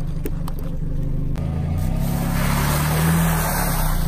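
A car engine running low and steady, with a few sharp cracks in the first second or so. From about two seconds in, a dense crackling hiss as the tyre rolls onto a pile of dry thin noodles and crushes them, while the engine note rises a little.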